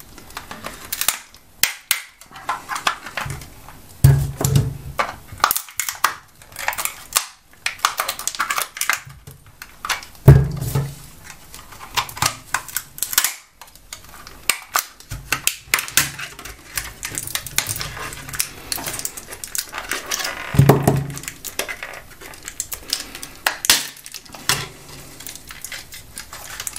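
Plastic laptop battery pack casing being pried and cracked apart with pliers and a screwdriver: an irregular string of sharp clicks, snaps and cracks, with a few heavier knocks about 4, 10 and 21 seconds in.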